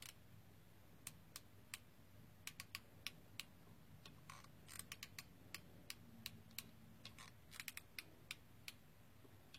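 Faint, irregular clicks of a hot glue gun's trigger being squeezed again and again as glue is laid down, some coming in quick little clusters.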